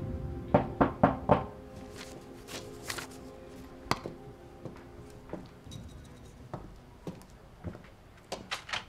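Papers and a leather document folder being handled on a desk: four sharp thunks and rustles in quick succession about half a second in, then scattered light knocks, over quiet background music that fades out.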